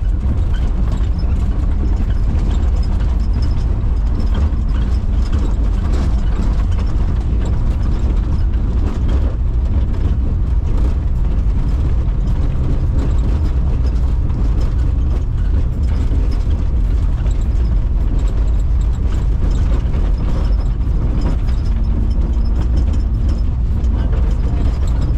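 Volkswagen Kombi van driving up a rough dirt road: a loud, steady engine and road rumble with continuous rattling and clattering.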